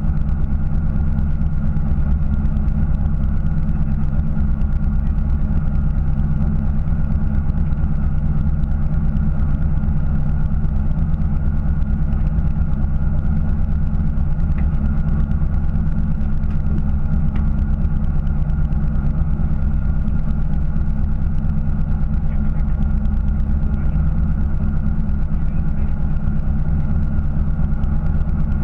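Fishing boat's engine idling, a steady low drone with an even hum above it that does not change.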